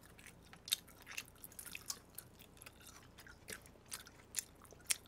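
Close-miked chewing of peeled shrimp: soft wet mouth sounds with a scatter of sharp, crackly clicks, the sharpest about a second in and again near the end.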